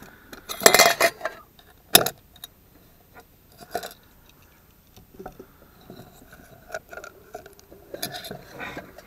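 Tin cans and a stainless steel cook pot clinking and scraping against each other as they are handled and pulled apart: a loud metal clatter about a second in, a sharp clink near two seconds, then lighter clinks and rattles.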